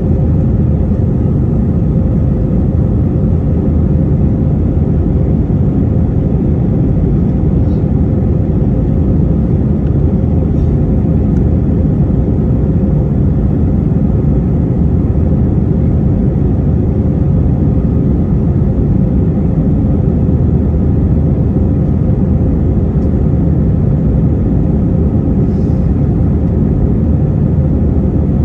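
Steady engine drone and airflow rumble inside the cabin of an Airbus A321-231 with IAE V2500 engines, a constant low rumble with a steady hum and no change in level.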